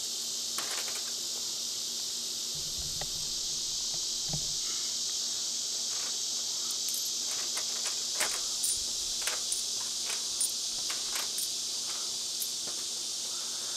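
A steady chorus of insects, an even high chirring, with scattered light clicks and taps from small items being handled on a table.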